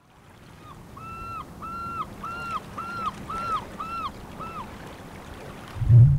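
A bird calls a run of about eight short, arched notes, each about half a second apart, over a steady wash of noise that fades in. Near the end a deep rumble swells in and becomes the loudest sound.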